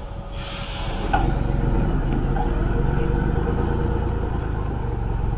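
Truck engine running, with a short burst of hiss in the first second; about a second in the engine gets louder and then runs on steadily.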